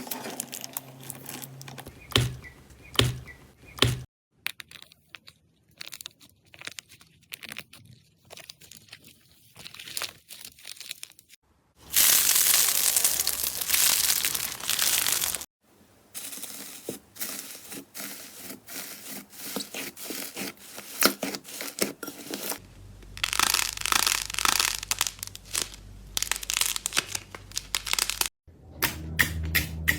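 Slime being squeezed, stretched and pressed by hands, giving crackling, crinkling and tearing sounds. It comes in a series of short takes that change abruptly, the loudest a dense crackle about a third of the way in.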